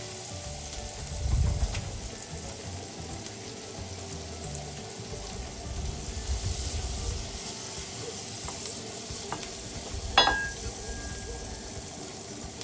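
Garlic, ginger and sliced onion sizzling in hot oil in a pan as they are stirred and sautéed, with a steady hiss and a few scraping sweeps of the spoon. About ten seconds in, the utensil strikes the pan with a sharp clink.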